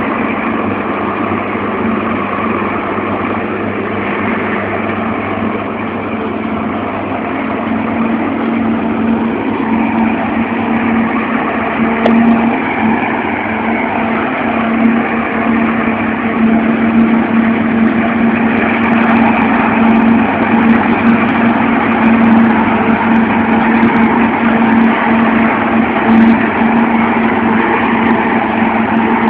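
An MB trac tractor's diesel engine and a forage harvester running steadily while chopping maize, with a constant hum under the engine noise. The sound grows louder about a quarter of the way in.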